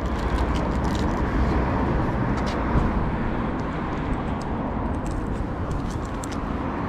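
Road traffic on a suburban street: a steady rushing tyre-and-engine noise with a low rumble that swells slightly and then eases.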